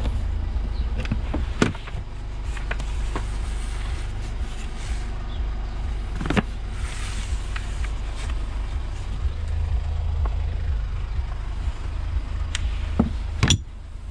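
Carpeted boot floor panel of a Mercedes GLK being lifted and lowered: scattered clicks and knocks, the loudest about six seconds in and a double knock near the end, over a steady low rumble.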